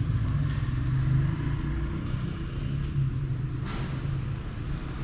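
A steady low rumble with a faint hiss over it, and one brief scrape a little past halfway.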